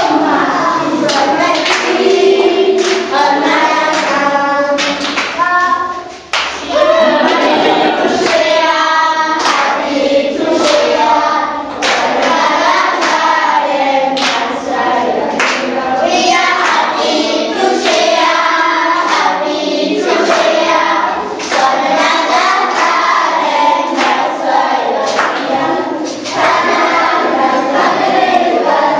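A group of children singing together, clapping along in time, with a brief break in the song about six seconds in.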